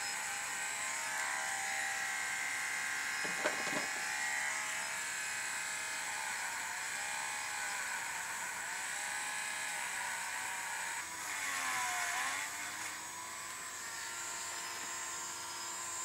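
Dremel rotary tool running with a small bit against the metal of a turn signal part: a steady high whine that sags in pitch several times as the bit bears on the metal, with a short tick about three and a half seconds in. It shuts off at the very end.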